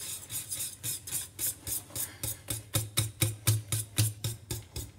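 Wire whisk beating mashed potatoes in a pot: rhythmic strokes about four a second, the wires clattering against the pot, louder in the second half.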